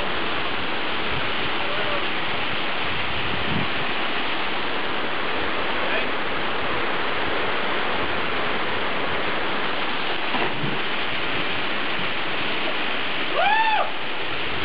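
Waterfall rushing steadily into a plunge pool. Near the end a person gives one short shout that rises and falls in pitch.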